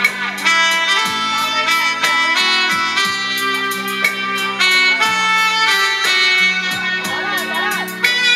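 Music: an instrumental passage with a steady beat about twice a second under a bass line and held melody notes.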